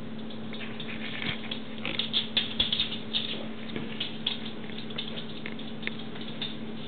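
Yorkshire terrier-mix puppies' paws pattering and scratching on crinkly puppy training pads, a run of quick scrabbling ticks about two seconds in, thinning out after.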